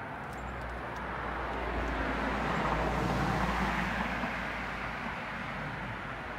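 An SUV passing on the street: its tyre and engine noise rises to a peak about three seconds in, then fades as it drives away.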